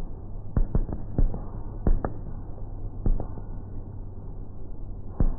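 Aerial fireworks shells bursting in slow motion: a run of bangs, several in quick pairs, over a low steady rumble.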